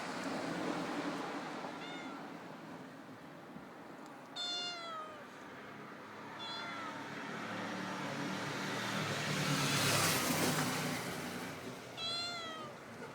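Domestic cat meowing four times, short calls that fall in pitch, the second and last the strongest. A rushing hiss swells through the middle and peaks about ten seconds in, louder than the calls.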